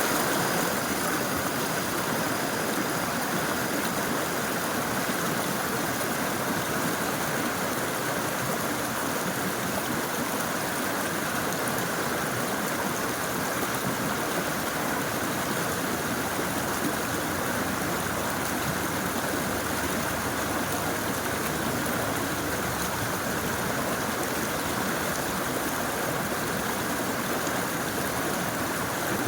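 Clear river water flowing over a forest streambed, a steady, unbroken rush of running water.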